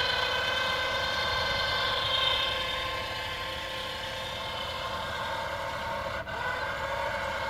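Harbor Freight 12-volt electric winch running steadily under load as it hauls a 50-foot steel tower upright, a whine of several steady tones over a low hum.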